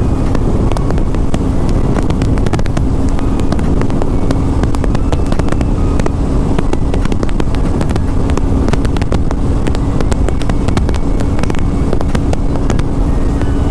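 Motorcycle engine running at a steady pitch at cruising speed, with heavy wind rush and buffeting on the microphone.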